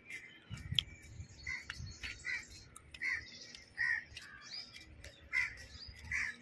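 Crows cawing repeatedly in short calls, with smaller birds chirping higher over them.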